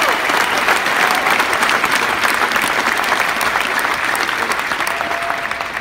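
Audience applauding, a dense patter of clapping that begins to die down near the end.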